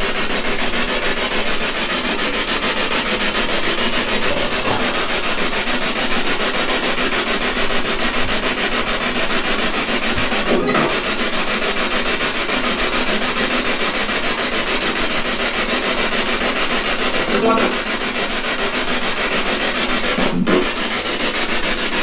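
Steady harsh radio static from a ghost-hunting spirit box sweeping the radio band, with a few brief snatches of sound in the second half.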